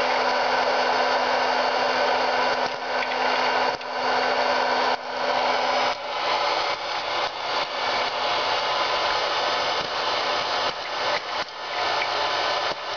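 Hot-air popcorn maker running, its blower fan making a steady rushing hiss. From about halfway through it is broken by irregular clicks.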